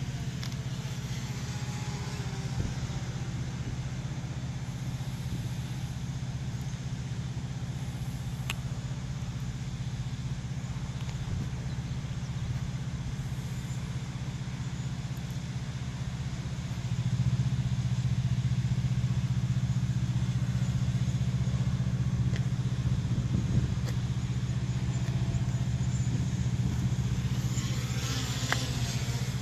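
A motor vehicle engine idling with a steady low hum, which gets louder about seventeen seconds in. A brief rushing sound swells near the end.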